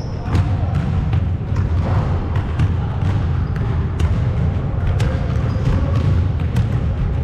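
Balls bouncing on a hardwood gym floor, with irregular sharp thuds several times a second that echo in the large hall, over a steady low rumble.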